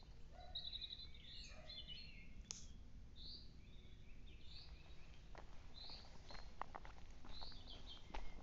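Small birds singing short, high chirping phrases, one about every second, with a brief trill near the start. Light crunching footsteps on dry leaf litter and twigs run underneath.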